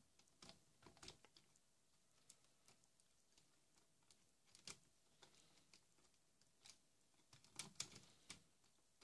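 Faint, scattered clicks and taps of plastic LEGO Bionicle parts being handled, turned and pressed together, with a few louder clicks about halfway through and near the end.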